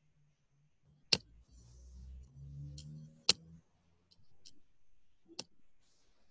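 Computer mouse clicking: three sharp clicks about two seconds apart, with a few fainter clicks between them, while a presentation is being opened for screen sharing. A faint low rumble runs under the middle clicks.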